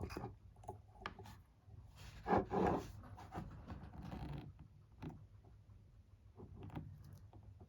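Handling noises: scattered light clicks and taps, with two short, louder scraping sounds close together about two and a half seconds in.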